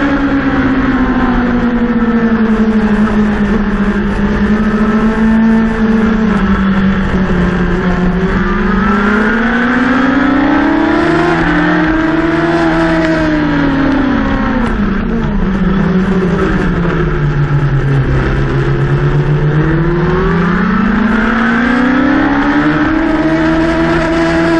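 Racing motorcycle engine heard from its own onboard camera at speed. The revs sag over the first several seconds, climb, drop low about two-thirds of the way through, then climb again near the end, over a steady rush of wind and tyre noise.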